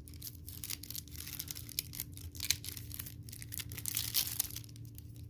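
Paper wrapping being torn and crinkled off a trading card deck: a continuous run of irregular rips and crackles.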